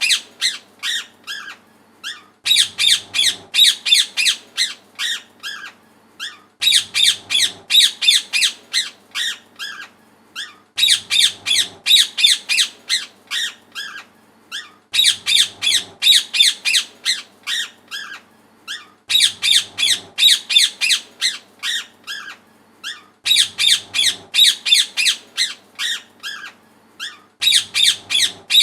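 Parrot squawking: rapid, harsh, high-pitched screeches, about five or six a second, in bursts that repeat the same pattern roughly every four seconds.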